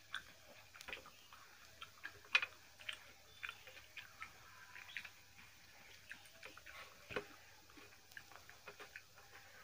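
Eating sounds: irregular light clicks and smacks as hands mix and scoop rice and mutton curry on steel plates, with chewing.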